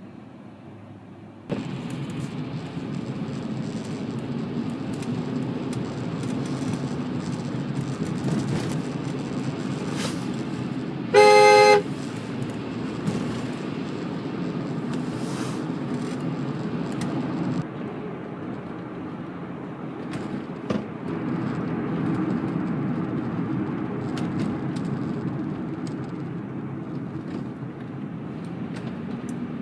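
A car horn sounds once, briefly, about eleven seconds in, over steady low vehicle and road noise that starts abruptly near the beginning.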